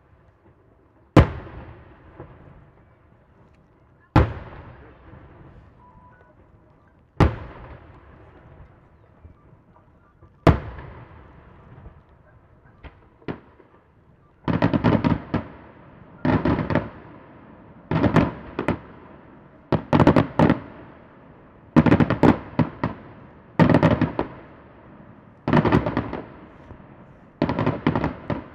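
Daytime aerial firework shells bursting in single loud bangs about every three seconds, each with an echoing tail. From about halfway they give way to groups of rapid crackling reports roughly every two seconds.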